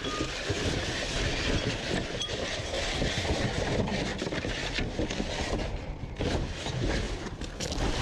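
Scrap being rummaged through in a dumpster: a continuous clatter of many small knocks and rattles over a low rumble.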